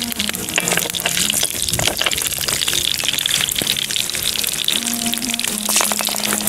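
Oil-coated stones sizzling and crackling in a hot cast-iron pan over a campfire as more stones are laid in. Background music plays underneath.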